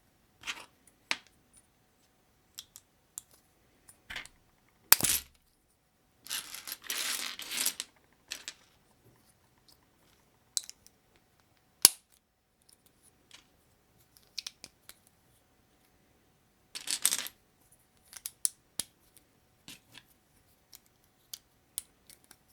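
Small Sembo plastic building bricks being handled and pressed together: scattered sharp clicks and clatters, with a longer rustling scrape about six to eight seconds in and a shorter one near seventeen seconds.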